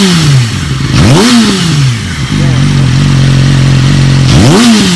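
2007 Yamaha R6's inline-four engine through a newly fitted M4 aftermarket exhaust, idling and blipped three times: each throttle blip sweeps quickly up and falls back to a steady idle, one right at the start, one about a second in, and one near the end.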